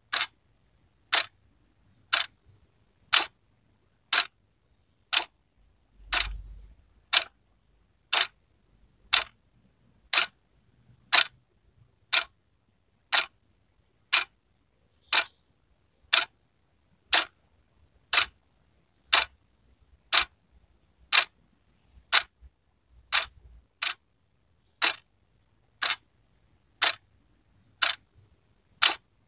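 Wall clock ticking steadily, one sharp tick a second.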